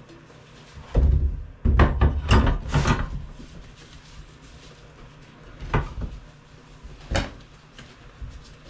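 Heavy clunks and rubbing from a dirt bike wheel and tyre being handled while the inner tube is worked out, loudest in a cluster about one to three seconds in, then two single knocks near the end.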